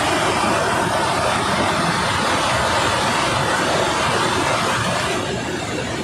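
Chitrakoot Falls on the Indravati River in heavy, muddy flow: a loud, steady rush of falling water, easing slightly near the end.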